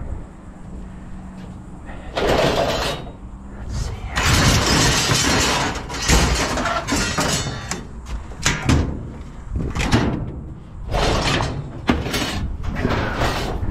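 Scrap metal being handled and loaded: clattering, scraping and crashing of metal pieces in several noisy spells, the longest starting about four seconds in, with sharp knocks near the end.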